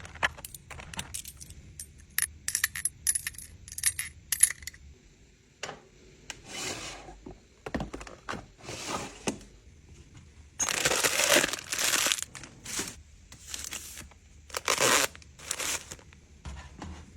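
Kitchen containers and packaging being handled. A run of light clicks and clinks, some with a bright ring, is followed by several longer noisy stretches; the longest comes about ten seconds in.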